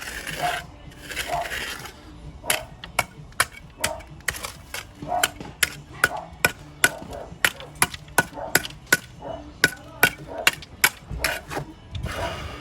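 A long run of sharp knocks, irregular at about two or three a second, with a rushing, scraping noise in the first couple of seconds and again near the end.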